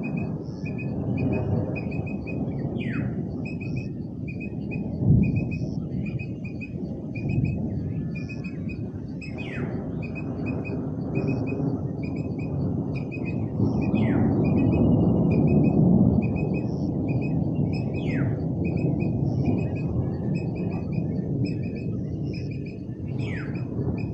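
Birds chirping: a rapid, even run of short high chirps about three a second, and every four to five seconds a loud call that slides downward in pitch, over a steady low rumble.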